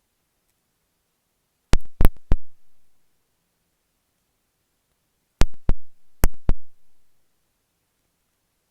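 Marking pins flicked right at an earphone microphone: sharp clicks, each with a dull thump, in a group of three about two seconds in and a group of four near the middle.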